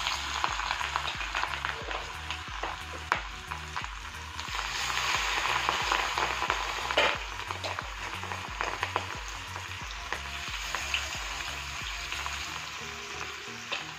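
Masala-coated prawns deep-frying in hot coconut oil in a cast-iron pan, the oil sizzling and bubbling hard, and louder for a few seconds around the middle. A slotted metal spoon stirs them, with small clicks against the pan.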